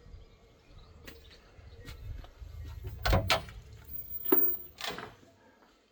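A handful of sharp knocks and clunks, the loudest pair about three seconds in, over a low rumble.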